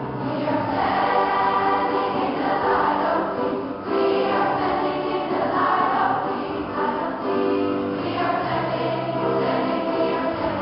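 Large mixed school choir singing in held phrases, with a short breath between phrases about four seconds in.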